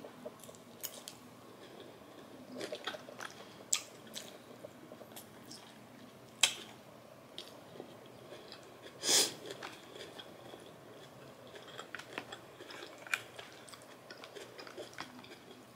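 A person chewing and biting food close to the microphone: scattered soft crunches and mouth clicks, with one louder crunch about nine seconds in.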